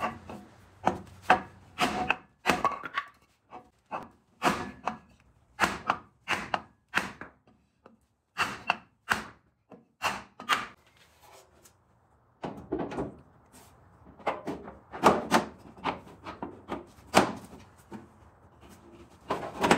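A hammer striking a wooden block held against a rusty steel exhaust tailpipe, sharp knocks about one to two a second with a short pause a little past the middle, beating the pipe to bend it inward.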